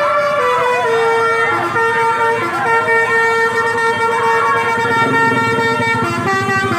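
Basuri telolet bus horn playing a melody: a string of loud, steady horn notes stepping up and down in pitch every few tenths of a second.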